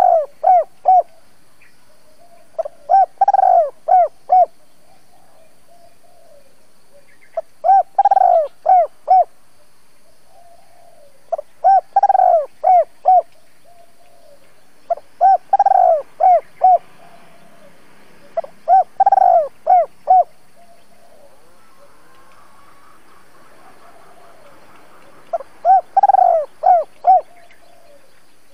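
Caged spotted dove cooing its calling song, used as a decoy to draw wild doves. There are seven phrases, each a quick run of several short coos with the first one the loudest, about one every three to four seconds and with a longer pause near the end.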